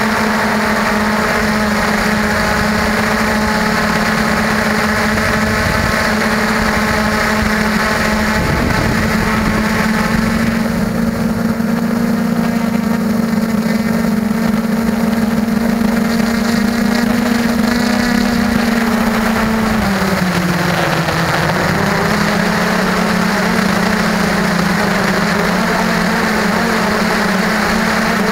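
Motors and propellers of a small camera drone, heard from on board: a steady hum that dips in pitch for a moment about twenty seconds in, then climbs back.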